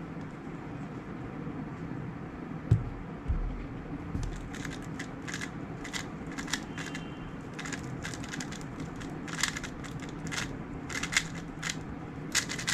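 Magnetic 3x3 speedcube (X-Man Tornado V3 M) being turned at speed during a timed speedsolve: a fast, uneven run of sharp clicking and clacking layer turns that starts after a couple of thumps about three seconds in, over a steady low hum.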